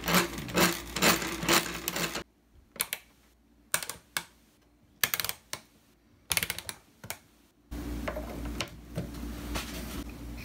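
Selector knobs and lever switches on a Hickok tube tester clicking into their detents as it is set up for a tube test: a quick run of clicks, then single clicks and short clusters. About three-quarters of the way through, a steady low hum sets in as the tester is switched on.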